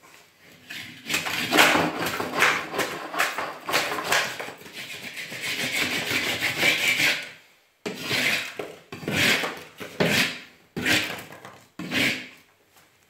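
OSB/chipboard floor panels creaking and rubbing as they flex under weight. There is a long run of grinding creaks for about six seconds, then five shorter creaks about a second apart. This is the sign of panels bending through over timber joists spaced too far apart.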